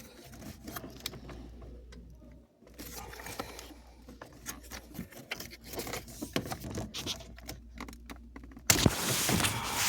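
Plastic dash trim and the heater control panel of a 2018 Honda Civic being handled and worked loose, with scattered small clicks and rattles, and a louder rustling scrape near the end.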